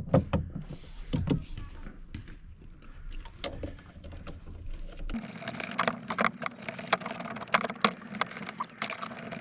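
Rattling clicks and knocks of metal and plastic car-door parts being handled and fitted into a metal groove. The clicking grows denser about five seconds in.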